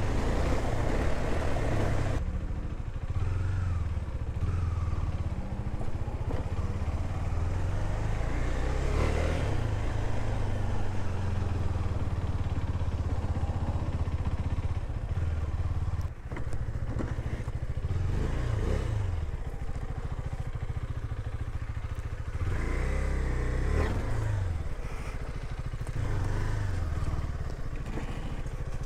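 KTM Duke 390's single-cylinder engine running under way on a motorcycle at low road speed, with the revs rising and falling a few times.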